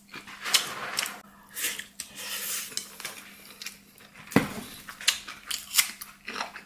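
Eating utensils clinking and scraping against a rice bowl as food is scooped up, with a sharper knock about four seconds in.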